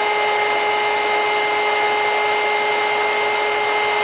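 Electric heat gun running steadily: an even rush of blown air with a steady motor whine, heating a plastic articulator hinge to soften it.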